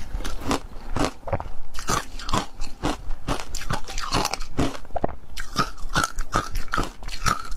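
Ice being bitten and chewed: a steady run of sharp crunches, several a second.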